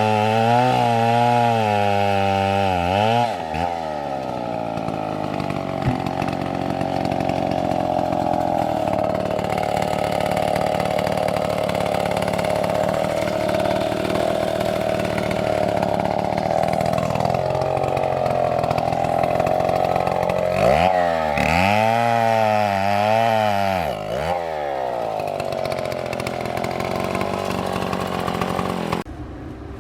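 Large two-stroke chainsaw cutting wood: the engine revs with a wavering pitch at the start and again about two-thirds of the way through, and settles to a lower, steadier note under load while the chain is in the cut. The sound drops sharply just before the end.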